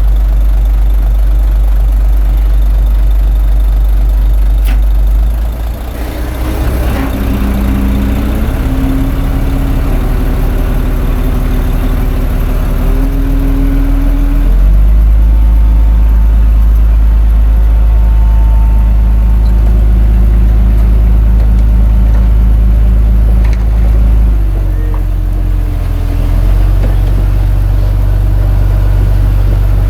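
Diesel engine of a Komatsu D21A bulldozer running steadily. Its note dips and shifts in pitch from about six seconds in, comes back louder and steady around fifteen seconds, and changes briefly again near twenty-five seconds.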